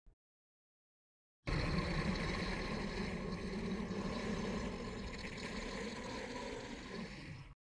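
Designed cinematic dragon sound effect: a sustained, rough, engine-like rumble that starts abruptly, fades slowly and cuts off after about six seconds.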